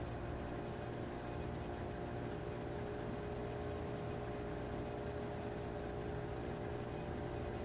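Steady machine hum with several constant tones over a faint hiss, unchanging throughout.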